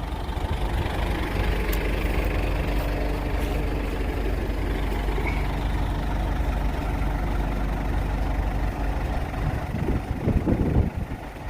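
Diesel engine of a 2000 New Holland 655E backhoe loader running steadily, lifting slightly in level about half a second in and then holding an even note; the engine sounds healthy.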